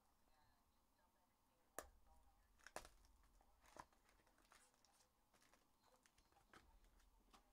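Faint crinkling and tearing of a foil trading-card pack wrapper being opened by hand, with a few sharp crackles between about two and four seconds in.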